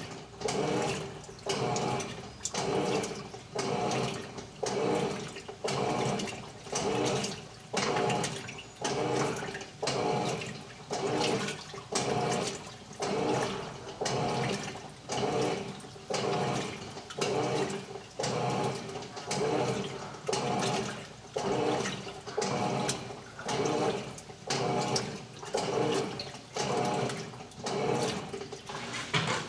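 Electrolux LTE12 Turbo Economia top-loading washing machine agitating a load: water sloshing in regular surges about once a second over a steady hum.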